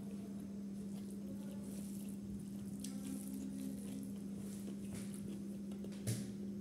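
Eating biryani by hand: fingers squishing and mixing rice on a plate, with small wet chewing sounds, over a steady low hum. A single brief knock sounds about six seconds in.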